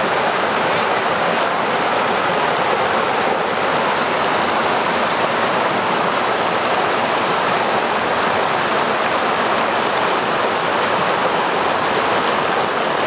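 Rushing mountain stream pouring over rocks in small whitewater cascades: a steady, unbroken rush of water.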